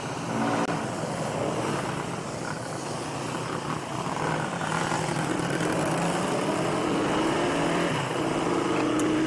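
Motorcycle engine running under way, its pitch slowly rising in the second half as it speeds up, over a steady rush of wind noise.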